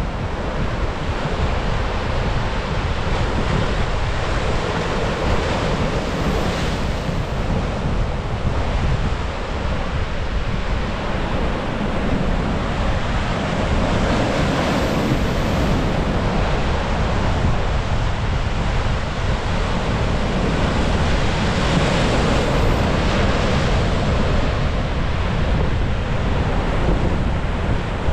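Sea surf breaking and washing over shoreline rocks and concrete breakwater blocks, a continuous rush that swells and eases with each wave, with wind buffeting the microphone.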